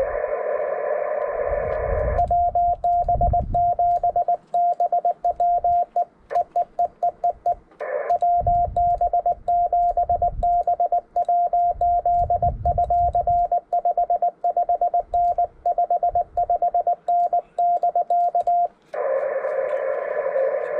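Ham radio transceiver on CW. At the start and again near the end, receiver hiss comes through a narrow audio filter with a faint received Morse signal. In between, the transmitter's sidetone sends fast Morse code, a single steady beep keyed rapidly on and off, over low rumbling.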